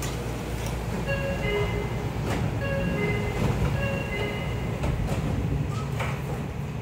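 An electronic chime melody plays twice over the low hum of a stopped electric train, signalling departure. About six seconds in, the train's sliding doors close with a thump.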